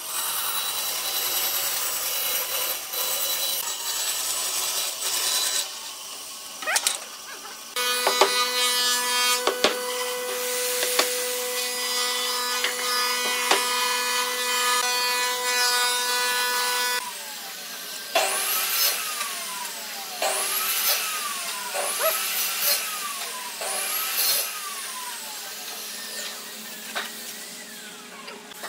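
A band saw cutting a curve through a glued-up pine panel for the first few seconds. After a brief lull, another workshop machine runs with a steady hum. Near the end comes a series of four rising-and-falling sweeps.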